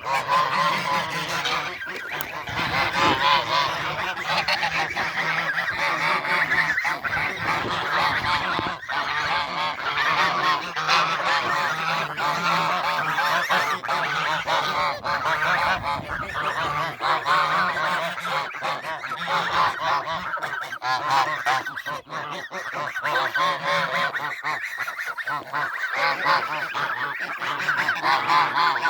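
A flock of domestic geese honking continuously, many calls overlapping.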